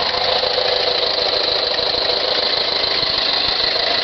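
1979 Volkswagen Type 2 bus's air-cooled flat-four engine idling steadily with an even, rapid pulse.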